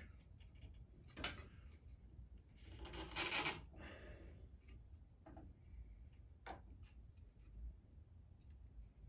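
Faint handling noises: a few sharp clicks and a brief rubbing, rustling scrape about three seconds in.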